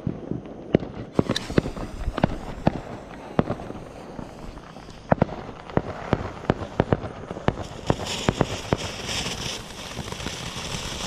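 Ground fireworks going off: a run of sharp pops and crackles at irregular intervals. From about eight seconds in, a fountain firework sprays sparks with a steady hiss.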